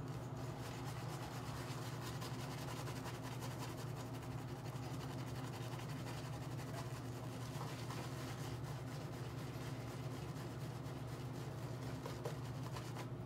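Shaving brush face-lathering: the bristles scrub and swish lather over the cheeks and chin in a continuous rubbing, over a steady low hum.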